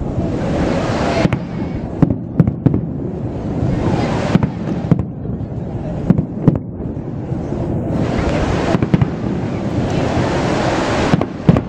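Aerial firework shells bursting, about ten sharp bangs at irregular intervals with the loudest pair near the end. Between the bangs there is a continuous rushing noise.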